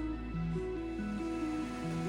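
Background music: a gentle instrumental melody of held notes moving step by step over a sustained bass.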